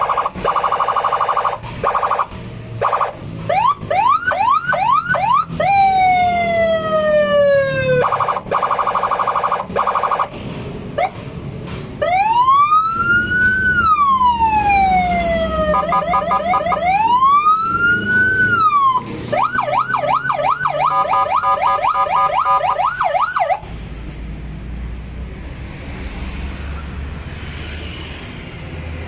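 Electronic police-escort siren cycling through its tones. It plays a fast warble, quick rising yelps, one long falling sweep, another warble, two slow rise-and-fall wails and then rapid yelps. It cuts off about 23 seconds in, leaving a low rumble.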